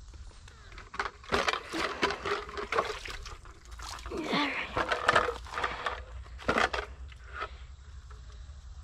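Water splashing and sloshing in irregular short bursts, with scattered clicks and knocks in between, then quieter near the end.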